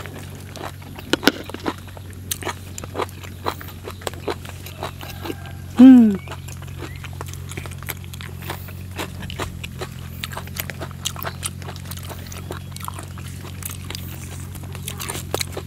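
Close-up wet chewing and mouth clicks of a person eating raw beef with a spoon. About six seconds in there is one short, loud grunt that falls in pitch.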